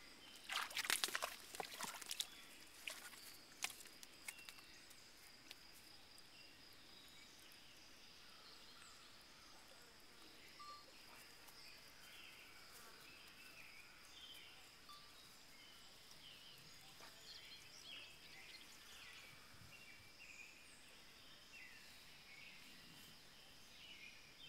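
White-tailed deer fawn falling into a garden fountain pool: a burst of splashing and scrambling starting about half a second in and lasting a couple of seconds, with a few more splashes after. Then faint outdoor quiet with a steady high insect drone and scattered bird chirps.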